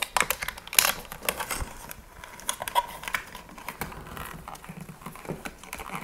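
Scattered light clicks and rustling as sheathed electrical cables are pushed and worked into a blue plastic electrical box by hand.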